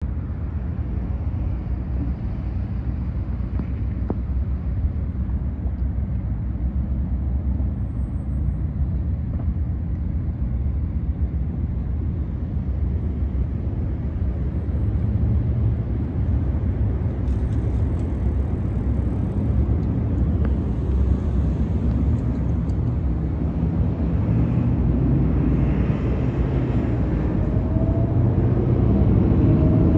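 Union Pacific diesel locomotives working under load in the distance: a low, steady engine rumble that slowly grows louder as the train approaches.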